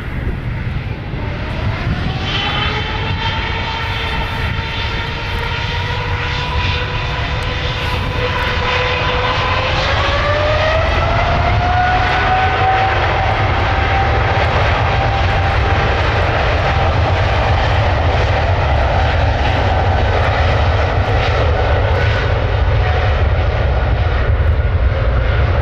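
Jet airliner's engines spooling up for take-off: a whine rises about two seconds in and holds, then climbs again around ten seconds in to a higher steady pitch, over a deep rumble that grows gradually louder.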